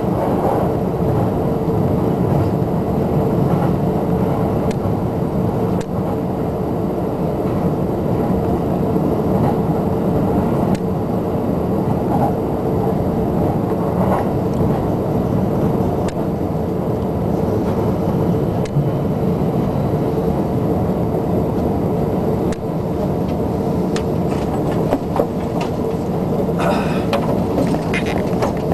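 JR Shonan Shinjuku Line electric commuter train running, heard inside the carriage: a steady rumble of wheels on rails with a constant hum and occasional light clicks.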